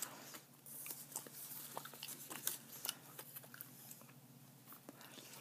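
Faint close-up gum chewing with scattered small mouth clicks, along with the light handling of paper sticker sheets.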